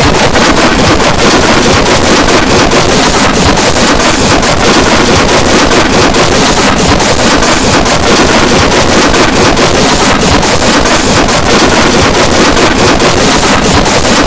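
Very loud, harsh distorted noise with no clear pitch and a dense crackle, pushed close to maximum level: overdriven, clipped audio.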